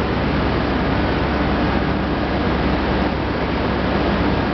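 Steady, loud din of the processing machinery in a corn wet-milling starch plant, running continuously with a low hum beneath it.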